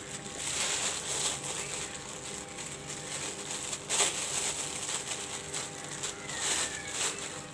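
Rustling and handling noises close to the microphone, swelling and fading a few times, with one sharper click about four seconds in, over a faint steady hum.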